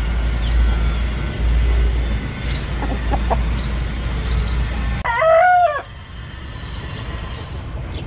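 A rooster gives one short, loud crow about five seconds in, with a few faint high chirps before it and a low rumble that stops just as the crow starts.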